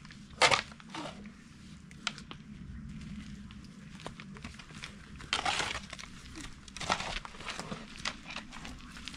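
Irregular rustling and crackling, with one sharp crack about half a second in and longer rustles around five and a half and seven seconds in.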